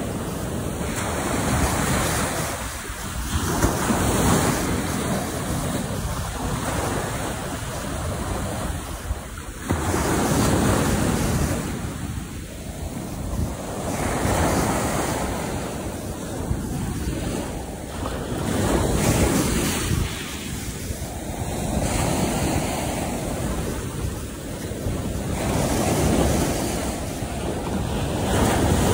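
Ocean surf breaking on the shore, the rush swelling and fading with each wave every few seconds, with wind buffeting the microphone.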